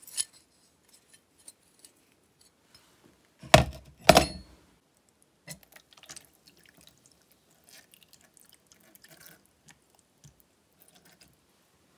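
Two loud thumps about half a second apart, then faint splashing and trickling as orthophosphoric acid is poured from a plastic jug into a plastic tub over a rusty metal chainsaw part.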